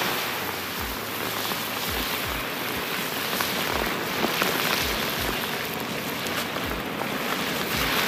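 Chicken pieces deep-frying in a large wok of hot oil: a steady, dense sizzling crackle. The oil is foaming hard as the moisture boils off the freshly added raw meat.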